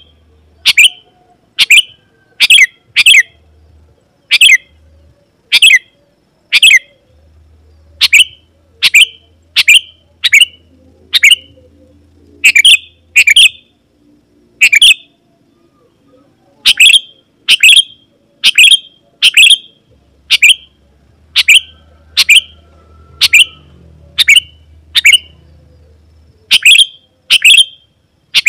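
Sooty-headed bulbul (kutilang) calling vigorously: short, sharp chirps repeated about once a second, sometimes in quick pairs.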